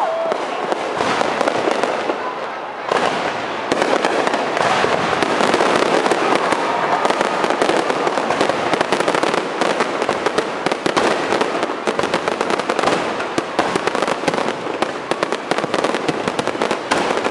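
Fireworks display: aerial shells bursting amid rapid, dense crackling and popping of crackle-star effects. A louder barrage starts about three seconds in.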